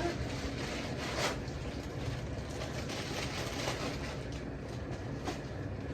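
Steady low background hum, with a faint click about a second in and another near the end.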